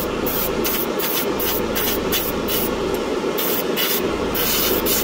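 Airbrush hissing as it sprays paint onto a plastic model chassis, the trigger worked in quick bursts two or three times a second, over a steady low hum.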